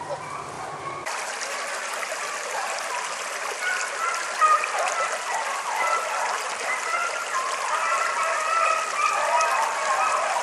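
Shallow creek water babbling and trickling over rocks, a steady running sound that starts abruptly about a second in.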